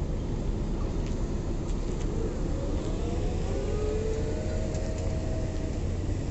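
Steady low engine rumble of a vehicle running. About halfway through, a faint whine rises and then holds level.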